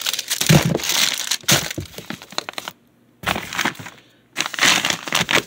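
Plastic feed bags crinkling and rustling as they are shifted and handled, in three spells with short breaks between them.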